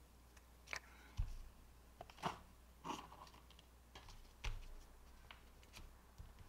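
Faint handling noises of plastic cash envelopes and a faux-leather binder on a desk: scattered soft taps and rustles about once a second, with a couple of low thumps as things are set down.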